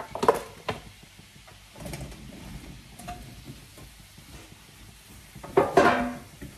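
Metal kitchenware clattering as apple slices are tipped from a metal dish into a pan of caramel syrup: a few sharp knocks at the start, softer ones in the middle, and a louder clatter near the end.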